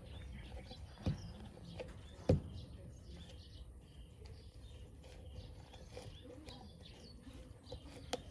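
Two short thumps about a second apart, with faint bird chirps in the background.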